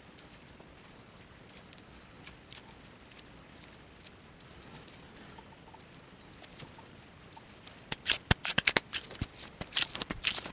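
Elmer's glue slime being worked: scattered soft sticky clicks at first, then a dense run of loud wet clicks and pops from about eight seconds in.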